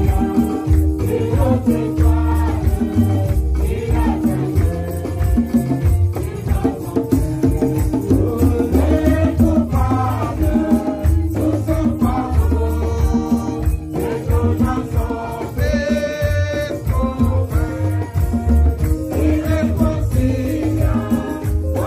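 Live praise and worship music: several women singing into microphones over a band with a deep, pulsing bass and a shaker rattling along with the beat.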